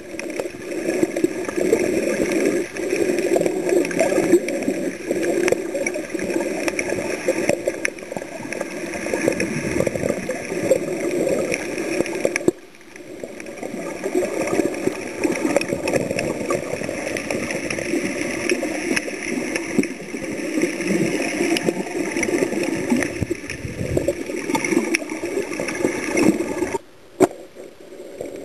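Water gurgling and bubbling around an underwater camera. It drops out abruptly about twelve seconds in, resumes, and cuts off again near the end.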